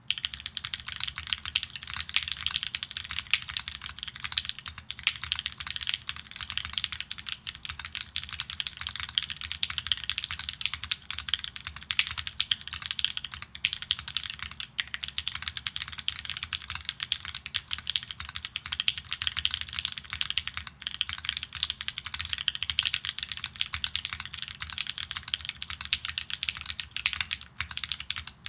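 Continuous fast typing on a Think6.5 V2 custom mechanical keyboard, with T1 switches lubed with Krytox 205g0 and filmed, mounted on an FR4 plate, under Infinikey keycaps. The keystrokes come rapidly and without a pause.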